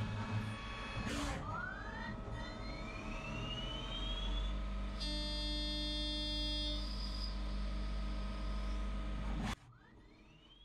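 CNC lathe machining a brass workpiece. There is a short rasp about a second in, then a whine that rises in pitch over a few seconds, then a steady whine of several tones. Near the end it drops suddenly to a much quieter hum.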